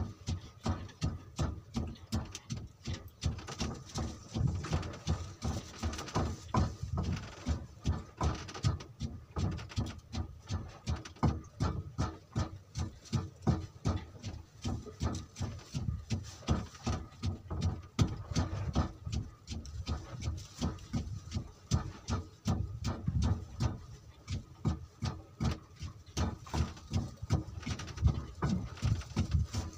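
Small waves slapping irregularly against the wooden hull of a small fishing boat, a quick uneven run of low knocks and splashes.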